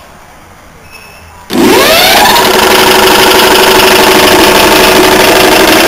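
An old Century 1 hp single-phase repulsion-start induction motor starts up about a second and a half in, its hum rising quickly in pitch as it spins up. It then runs steadily and loudly, driving the old Ingersoll Rand air compressor's worn piston pump.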